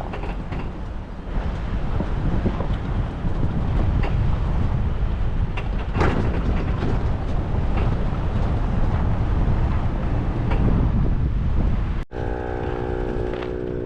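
Off-road vehicle driving on a rough trail in strong wind: a heavy low rumble of wind buffeting the microphone, with scattered knocks and rattles. About twelve seconds in it cuts abruptly to a steady engine drone.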